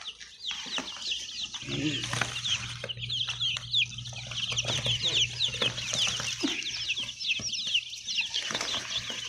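A crowd of day-old chicks peeping together: a dense, continuous chorus of short falling cheeps, with some knocks and rustling among them.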